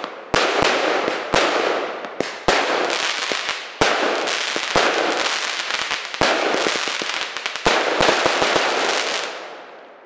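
Piromax Alfa 25-shot 20 mm firework cake firing its last shots: a sharp bang every second or two as shells burst overhead, each trailed by dense crackling. The crackle dies away near the end as the cake finishes.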